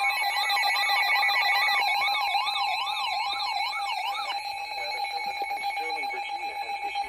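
Electronic emergency alert tones. A steady alert tone holds under a siren-like warble that sweeps up and down about twice a second, and the warble stops about four seconds in while the steady tone goes on.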